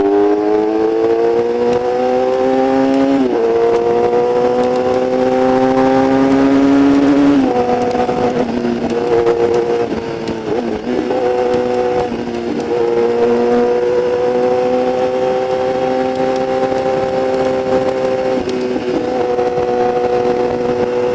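Yamaha YZF-R6's inline-four engine through a Shadux aftermarket exhaust, pulling away and accelerating through the gears. The pitch rises, drops at an upshift about three seconds in, and rises again to a second shift about seven seconds in. It then holds fairly steady at cruising speed, with a few brief dips as the throttle eases.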